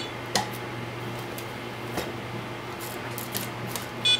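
A few small, sharp plastic clicks and taps as hands fit propellers onto the motors of an FPV racing quadcopter, over a steady low hum. The clicks are scattered: one just after the start, one about two seconds in, and a quick cluster past three seconds.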